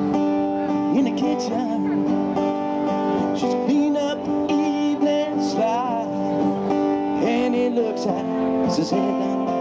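A live rock band playing: electric guitars, bass guitar and drum kit, with a man singing lead vocals.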